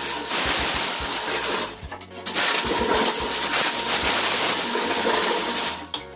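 A loud, steady hiss of a spray or jet, cutting out for about half a second around two seconds in, then running again until it stops shortly before the end.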